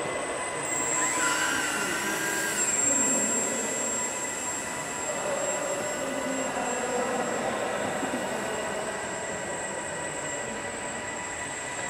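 Electric motor and propeller of a 61 g EPP micro Yak RC aerobatic plane whining in flight, a steady high whine with its pitch rising and falling as the throttle changes; it brightens about a second in as the plane is launched.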